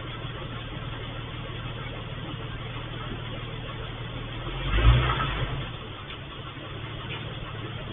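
Steady low hum of a vehicle engine running, with a car accelerating or driving past that swells loudest about five seconds in and then fades.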